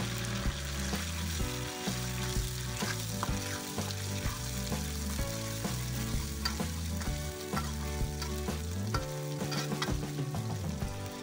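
Ground green chili spice paste frying in hot oil in an aluminium wok, sizzling steadily, while a metal spatula stirs it with many small scrapes and taps against the pan.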